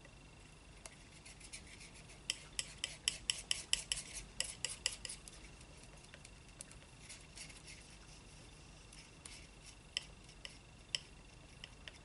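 Steel palette knife mixing thick paint on a palette: a quick run of light clicks and scrapes from the blade a couple of seconds in, then scattered single clicks and taps.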